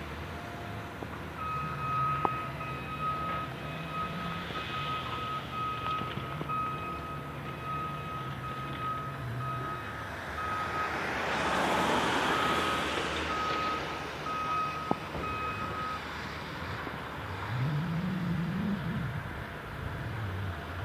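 A heavy construction machine's reversing alarm beeping in a steady series, about two beeps a second, for some fifteen seconds over the low running of diesel engines. About halfway through a broad rush of noise swells and fades, and near the end an engine revs up and back down.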